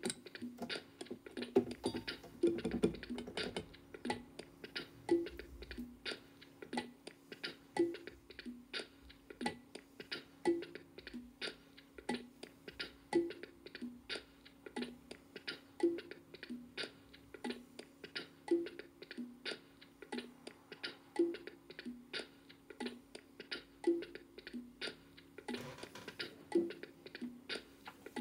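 A repeating percussion loop of quick clicks and taps, about three a second, with a low pitched note every two to three seconds. A fuller sound joins near the end.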